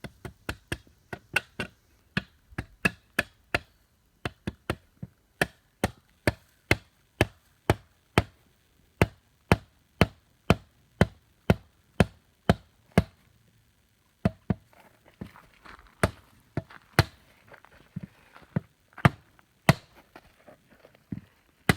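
Repeated sharp hammer blows on corten steel garden edging as it is driven into the ground, about two a second, then a short pause and slower, scattered blows with a faint rustling between them.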